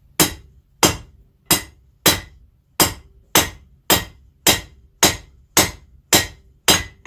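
Blacksmith's hammer striking a steel knife blank on an anvil in a steady rhythm, about two blows a second, each with a short metallic ring. It is forging work, the notching of the blank where the handle will go.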